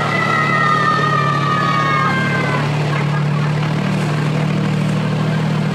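Miniature railroad train running along its track, with a steady low engine drone. A high two-tone squeal slowly falls in pitch and stops about two and a half seconds in.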